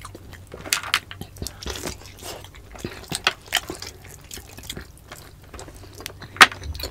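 Close-miked wet eating: chewing, lip smacks and squishing of soft, gelatinous stewed beef balbacua eaten by hand, in irregular short clicks, with one sharp click near the end.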